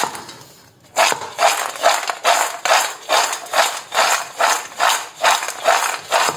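Crisp fried cashew-shaped dough snacks rattling and sliding against a steel bowl as the bowl is tossed, in regular strokes about two and a half a second, starting about a second in. The dry, crunchy rattle is the sign that the snacks are fried crisp.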